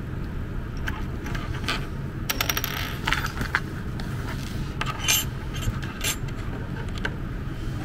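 Small metallic clicks and clinks from handling a USB soldering iron and its replacement tip, with a quick rattling run of clicks about two and a half seconds in, over a steady low rumble.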